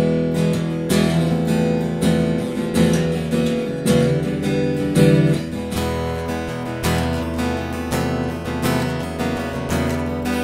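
Ibanez AE900NT acoustic guitar (solid Sitka spruce top, rosewood back and sides) strummed in full chords in a steady rhythm. The sound comes through its undersaddle pickup and preamp's direct output, switching to the recorder's room condenser mics for a stretch midway.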